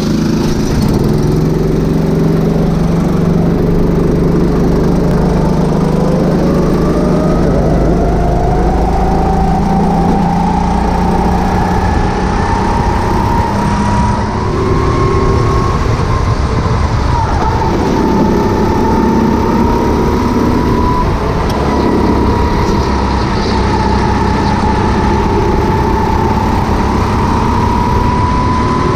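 Rental go-kart engine heard from the driver's seat: idling low at first, then climbing steadily in pitch as the kart pulls away and accelerates, then dipping and rising again through the corners. The driver wonders whether it is the Honda GX390 engine option, as the karts felt faster than normal rentals.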